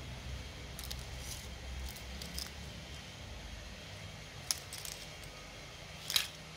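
Light clicks and rattles of a broken LED bulb's pieces being handled, the LED circuit board and the cracked plastic housing knocking together, with a sharper click about four and a half seconds in and the loudest near the end. A low steady rumble runs underneath.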